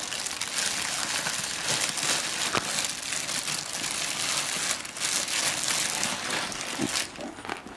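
Packaging crinkling and rustling as a costume is unwrapped and handled, a continuous rustle that stops about seven seconds in.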